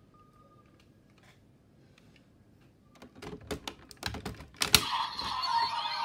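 Plastic clicks as a Claw Raise Buckle is fitted into the right-hand slot of a DX Desire Driver toy belt, ending in a loud snap as it locks in near the end. The belt then starts playing its electronic sound effect.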